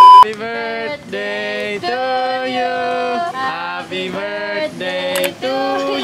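A loud steady bleep tone cuts off just after the start, then voices singing a melody with long held notes and short breaks between phrases.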